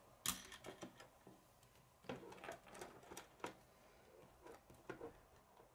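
Faint, scattered clicks of plastic K'nex rods and connectors being handled and snapped together.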